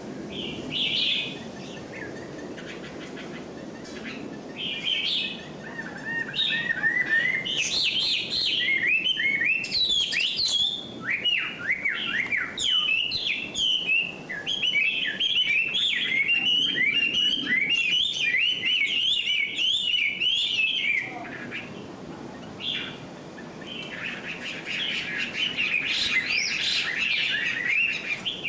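Small birds chirping and twittering in many quick, overlapping notes, busiest through the middle, easing off briefly, then picking up again near the end.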